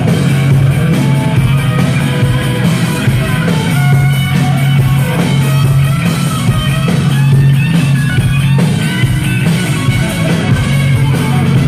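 Live hard rock band playing loud: electric guitar through Marshall amplifiers carrying melodic lead lines over drums and a low held note, heard from within the audience.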